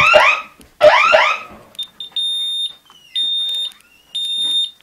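Home security alarm siren, set off from the panel's fire button, sounding a fast repeating rising yelp that cuts off about a second and a half in. The control keypad's high-pitched beeper then gives three long beeps.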